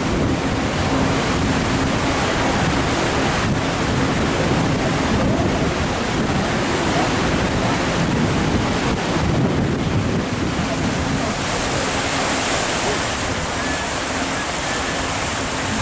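Steady rush of river water along a moving cruise boat's hull, with wind buffeting the microphone and a low steady engine hum underneath; the hiss grows a little brighter about two-thirds of the way through.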